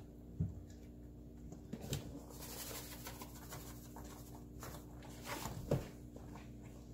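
A spatula stirring and scraping through a thick blended green-plantain and peanut mixture in a pan, in soft, scattered strokes with a few light knocks, over a faint steady hum.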